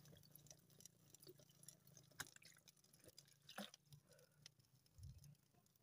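Near silence: only faint scattered ticks and small crackles, with a soft low thump about five seconds in.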